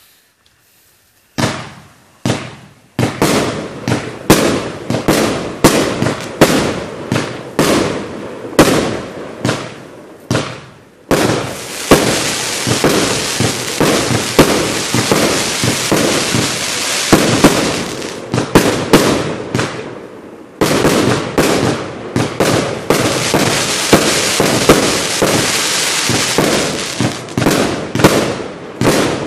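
A 1.3G 'Fire Warrior' 49-shot firework barrage firing. After about a second and a half of near quiet, shots launch and burst about twice a second. From about eleven seconds in they thicken into a dense, nearly continuous volley of bangs and pops, with a brief lull around twenty seconds.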